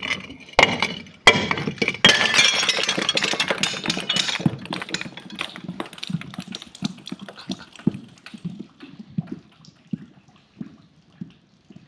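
Glass breaking: a few sharp impacts in the first two seconds, then a dense spell of crunching and tinkling shards that thins out to scattered crackles toward the end.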